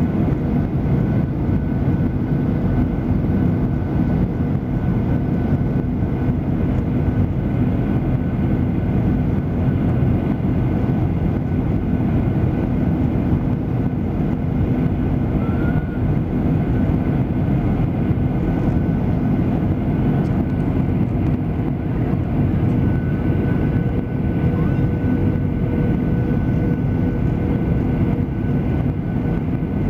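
Steady engine and airflow noise inside a passenger airliner's cabin in flight, deep and even, with faint steady tones held above it.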